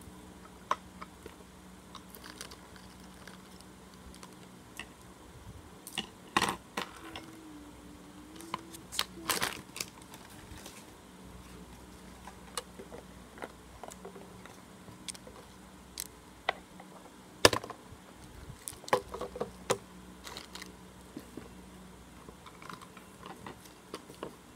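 Colouring on paper with wax crayons: scattered scratchy strokes, taps and clicks as the crayons are worked and picked up or set down on the table, with a sharper knock about two-thirds of the way through. A faint steady hum runs underneath.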